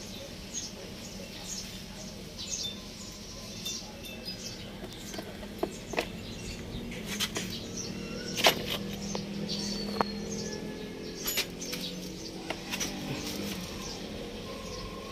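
Small birds chirping over a faint low hum, with several sharp clicks and taps of hand tools or test leads, the loudest about eight and a half seconds in.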